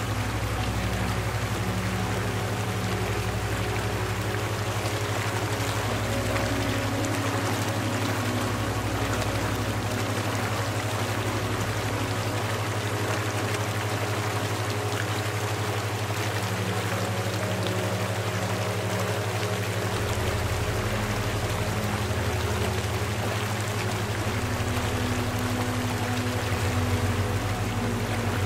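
Steady running water, like a stream, over a constant low hum, with soft held tones underneath that shift every few seconds.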